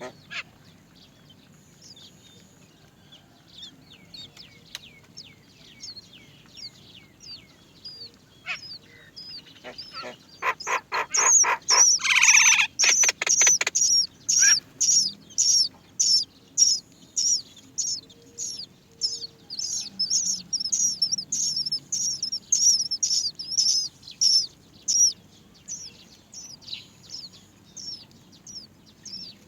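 Great myna nestlings begging: short high falling chirps, sparse at first, then from about ten seconds in a loud, fast run of calls about two a second, with one harsh louder call around twelve seconds.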